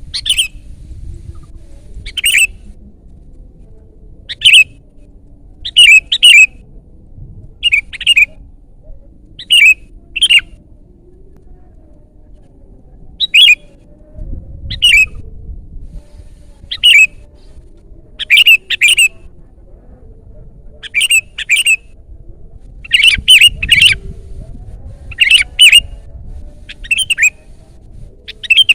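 Sooty-headed bulbul (kutilang) calling loudly: short, sharp calls, often in quick pairs, repeated every second or two.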